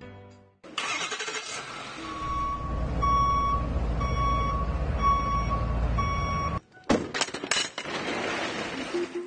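A large truck's engine running with its reversing beeper sounding about once a second, five or six beeps, then the engine sound cuts off suddenly, followed by a few seconds of noisy clatter.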